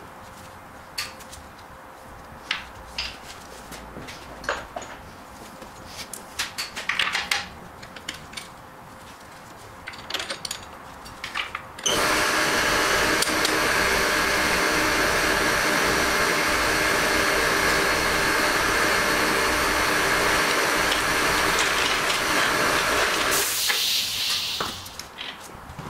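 Light metallic clinks and knocks of hand work on an engine, then about halfway a loud, steady motor-driven machine starts abruptly and runs for about eleven seconds before stopping with a brief high hiss.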